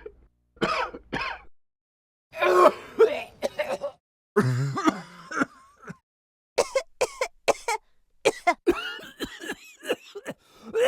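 A person coughing and clearing their throat in a series of short separate bursts, ending in a quick run of sharp coughs in the second half.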